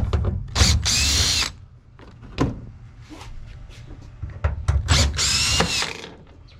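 Power drill with a T25 Torx bit backing self-tapping screws out of a van's sheet-metal wall panel. It runs in two short bursts about four seconds apart, the motor whine rising and then falling in pitch each time, with a few sharp clicks in between.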